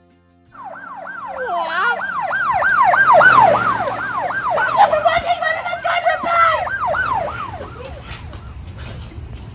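An emergency-vehicle siren wailing in fast rising-and-falling sweeps, about three a second, with overlapping sweeps through the middle. It starts abruptly about half a second in and dies away near the end.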